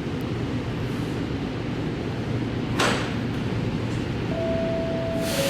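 Sydney Metro Alstom Metropolis train standing at the platform with a steady low hum, a short hiss about halfway through, then a held chime tone and a second, lower tone near the end as the door chime sounds before the doors open.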